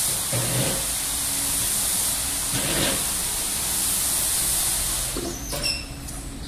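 Automatic gantry car wash spraying the car: a steady high hiss from the spray nozzles, which cuts off about five seconds in, followed by a few short metallic clunks from the machine.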